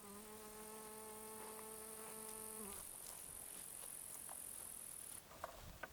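Crickets chirring steadily, a high-pitched band that stops about five seconds in. Over the first two and a half seconds a steady, low, pitched tone sounds and then stops.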